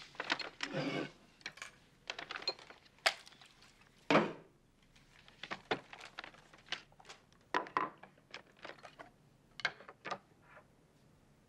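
Lunch being unpacked from a paper shopping bag: the bag rustles, then a string of small knocks and clicks as a lacquered bento box, a small glass soy sauce bottle and other items are set down on a table, with one louder thud about four seconds in.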